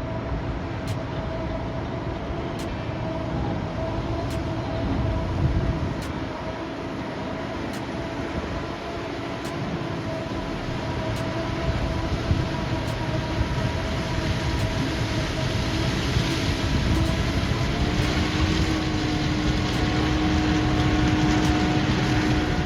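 Heavy machinery running steadily: a continuous low rumble with several held engine tones. About eighteen seconds in the lowest tone shifts slightly higher and the sound grows a little louder.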